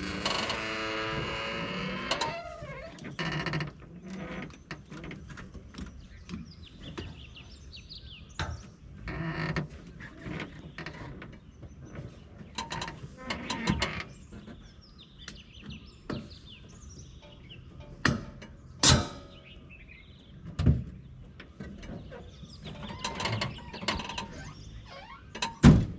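Clicks, rattles and knocks of metal fittings and latches as the convertible top and door of a Mahindra Thar are worked on by hand, with a wavering creak in the first two seconds and several sharp knocks in the second half, the loudest near the end.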